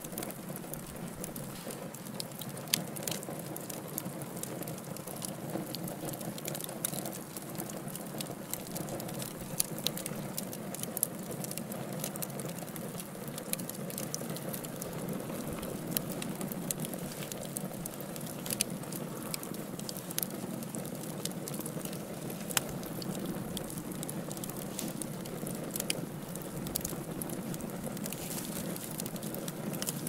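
Wood fire burning in a fireplace: a steady low rush of flame with irregular crackles and sharp pops, a few of them louder than the rest.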